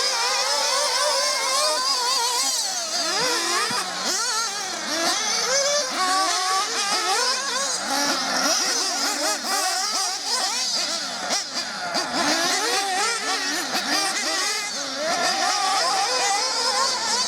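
Several radio-controlled cars' small high-revving motors, their pitches rising and falling over one another as they accelerate and brake around a track.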